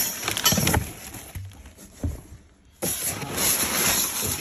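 Kraft packing paper and plastic wrap rustling and crinkling as hands dig through a cardboard shipping box, with scattered light knocks. It dies down near the middle, then starts again suddenly about two-thirds through.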